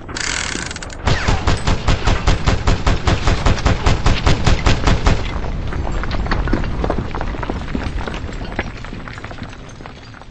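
Machine-gun fire sound effect: a short whoosh, then a rapid, even string of shots for about four seconds, followed by a rumble that slowly fades away.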